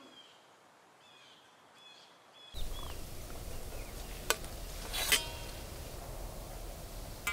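Faint bird calls, then a steady outdoor hiss with more chirps. A metal spatula clinks twice against a stainless-steel plate, about a second apart, as a stack of parathas is set down on it.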